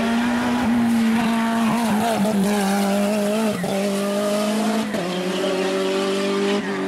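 Racing car engine held at high revs as the car accelerates uphill. The note breaks briefly for gear changes, about halfway and again about five seconds in.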